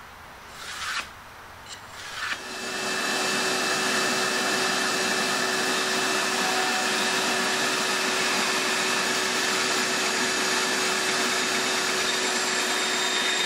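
A few brief scrapes and knocks, then from about two seconds in a Rikon 10-3061 band saw running steadily as its blade cuts through a plywood sheet, a constant hum and whir with a few steady tones.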